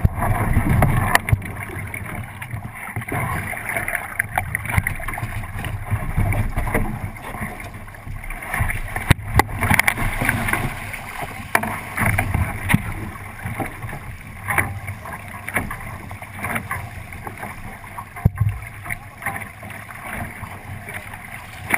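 Water rushing and splashing along the hull of a 29er skiff under sail, with wind noise and scattered sharp knocks on the boat.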